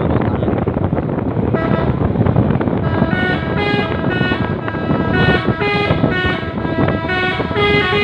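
Telolet horn on a Hino truck playing a quick run of changing musical notes, starting about a second and a half in and growing busier from about three seconds, over steady engine and road noise.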